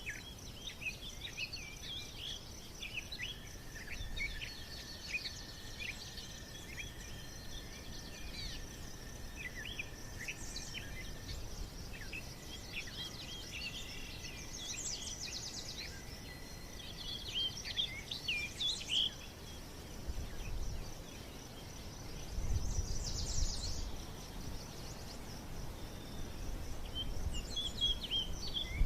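Many birds chirping over a steady high buzz like insects, with some low rumbling about two thirds of the way through.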